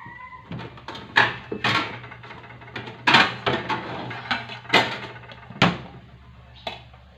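Kitchen handling clatter: a run of sharp knocks and clacks as objects are picked up and set down on a hard surface, over a steady low hum.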